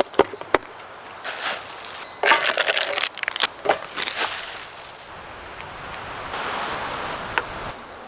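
Hands handling gear: several sharp clicks, then clusters of knocks and rustling, followed near the end by a steady hiss lasting about a second and a half that stops abruptly.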